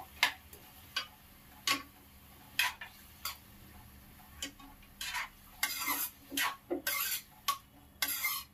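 Metal ladle scraping and knocking against a metal kadai while stirring cauliflower masala: single strokes about once a second at first, then quicker, busier scraping in the last few seconds.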